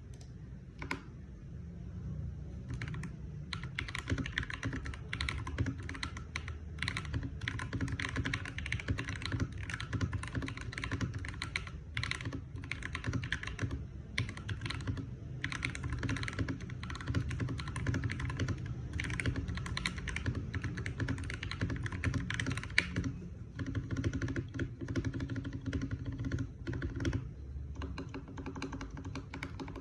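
Mechanical keyboard being typed on: a few scattered keystrokes at first, then fast continuous key clacking with a couple of short pauses.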